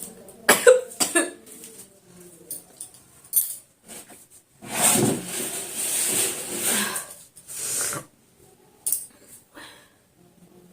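A woman hiccuping: two sharp hiccups about half a second apart near the start and a few more short ones later, with a long breathy rush of air lasting about three seconds in the middle. The hiccups are persistent ones that have not stopped.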